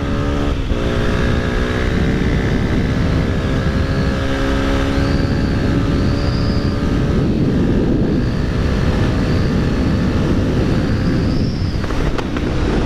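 Honda XR250 Tornado's single-cylinder engine running through an aftermarket Belparts exhaust under way on the road, its pitch climbing slowly, with a brief break about half a second in and another past the middle. Heavy wind rush underneath.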